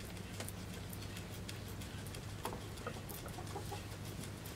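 Guinea pig chewing corn leaves: a run of small, irregular crisp crunching clicks over a steady low hum.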